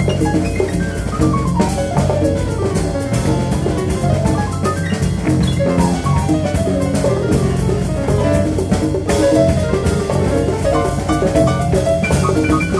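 Live jazz big band playing. Piano runs in quick falling lines over drums and a steady low bass.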